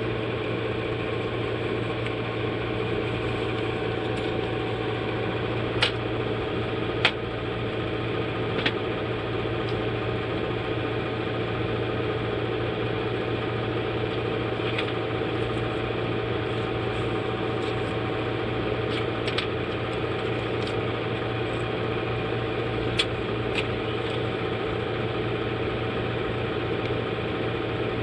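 A steady machine hum, like a small fan or motor, with a few short sharp clicks: two about six and seven seconds in, and two more close together near the end.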